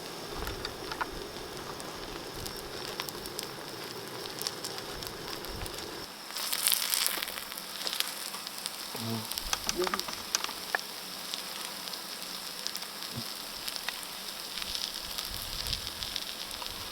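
Food sizzling and crackling in a hot pan, with a louder burst of sizzle about six seconds in.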